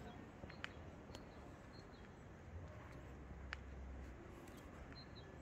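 Faint outdoor street ambience with a low rumble, a few sharp ticks in the first few seconds, and short high bird chirps about five seconds in.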